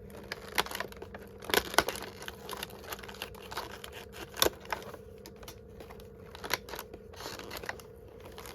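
Packaging crinkling and tearing as a small package is unwrapped by hand, with irregular sharp crackles.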